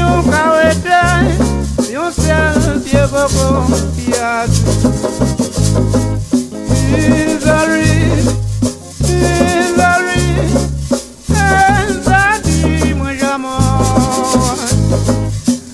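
St. Lucian kwéyòl folk song playing: a steady shaker rattle over a stepping bass line, with a melody line above that bends in pitch.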